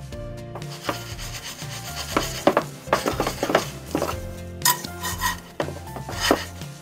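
A buttered ham and cheese sandwich sizzling in a frying pan, a gritty crackling hiss with scattered pops, over background music with a steady bass line.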